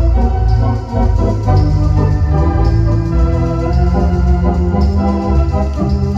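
Conn 652 electronic theatre organ playing a tune: full sustained chords on the manuals over a bass line that moves to a new note about every second.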